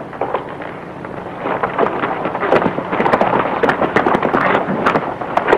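Hoofbeats of a horse moving off under its rider on a dirt street, getting louder about a second and a half in, over the hiss of an old film soundtrack.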